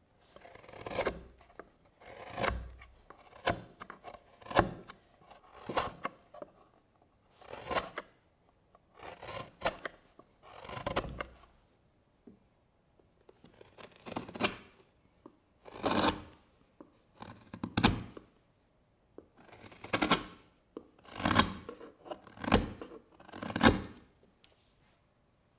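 Hand carving chisel slicing into maple wood, one short scraping cut about every second, with a pause of a couple of seconds about halfway through.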